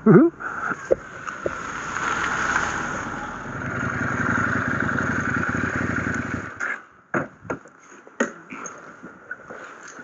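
Husqvarna Norden 901's parallel-twin engine running as the motorcycle rolls slowly, a little louder in the middle, then cutting off about six and a half seconds in, followed by a few knocks and clicks.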